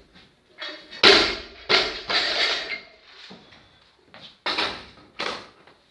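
Loaded barbell with bumper plates dropped from overhead onto the rubber-matted floor: a heavy crash about a second in, then a couple of bouncing knocks and rattles, and two more knocks near the end.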